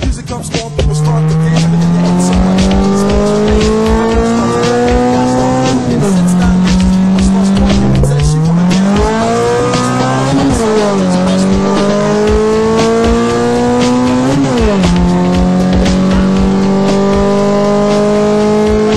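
Ported SOHC Honda D16A6 four-cylinder pulling hard through the gears, revved out toward 8,000 rpm. The engine note climbs steadily and falls back sharply several times at the gear changes, ending on one long, slower climb.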